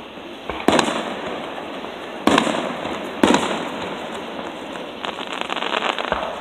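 Aerial firework shells bursting: three sharp bangs within about three seconds, each trailing off, then a run of fast crackling near the end.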